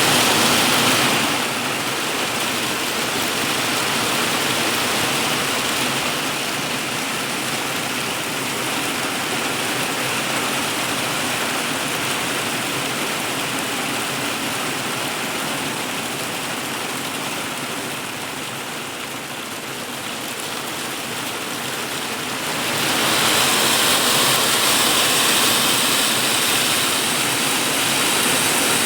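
Heavy hail drumming on a polycarbonate roof, a dense, very loud clatter. It eases somewhat in the middle and grows heavier again after about twenty-three seconds.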